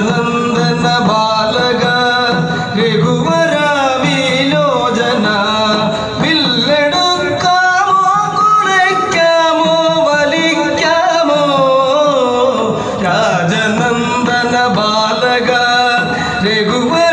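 Song sung in Malayalam, with a gliding, ornamented melody over a steady low drone.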